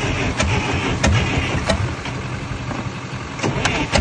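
1953 International TD-6 bulldozer engine turning over with a slow, uneven beat: a low pulse and a sharp knock about every half second, easing off a little past the middle.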